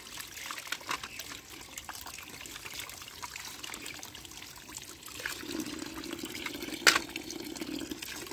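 Tap water running and splashing over small plastic toy cars held under the stream and into a plastic basket, with small patters and clicks throughout. From about five and a half seconds in the water takes on a deeper, fuller sound until near the end, and one sharp knock stands out around seven seconds in.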